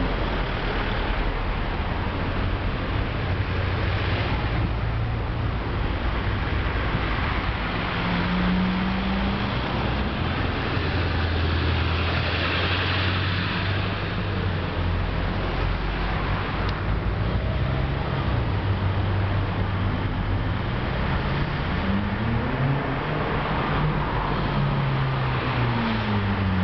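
Road traffic: cars driving past with a steady engine hum and road noise, and near the end one engine's pitch rises and falls as it passes.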